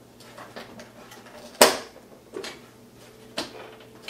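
Plastic clicks and knocks as the clear lens cover of an instrument cluster is pressed onto its housing, its tabs dropping into their slots. One sharp, loud click comes about a second and a half in, with two fainter knocks after it.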